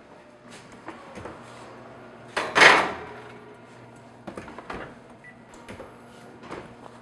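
Kitchen wall oven and metal sheet pan being handled: the oven door opening and a sheet pan on the oven rack, with one loud clatter about two and a half seconds in and lighter clicks and knocks after it.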